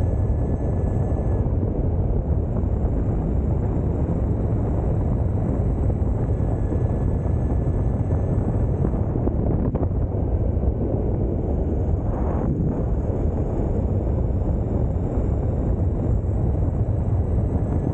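Steady wind rush and buffeting on the microphone while riding an electric mountain board at speed, with the low rumble of the board rolling on asphalt.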